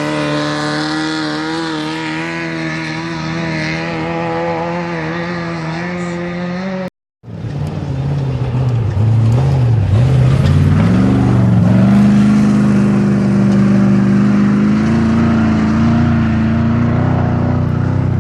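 Off-road race vehicle engine running at a steady pitch. The sound cuts out abruptly about seven seconds in, and a louder engine follows; its pitch dips and then rises as it revs up, then holds steady.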